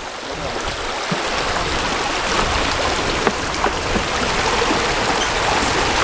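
Fast, shallow river water rushing over rocks around a bamboo footbridge, a steady rushing noise, with a few faint clicks.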